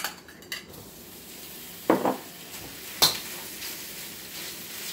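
Thin-sliced beef going into a hot wok and starting to sizzle, with a spatula knocking and scraping against the wok as the meat is stirred. Two louder clacks come about two and three seconds in.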